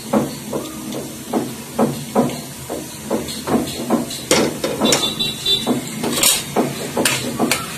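Steady knocking, about two to three knocks a second, over the sizzle of whole spices (cinnamon, cardamom, cloves) frying in hot mustard oil in an aluminium kadai.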